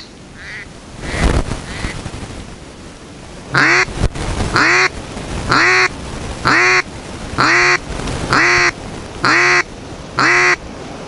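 Live decoy duck quacking: after a few faint quacks, a run of about eight loud quacks at roughly one a second. Strong wind gusts on the microphone, loudest about a second in.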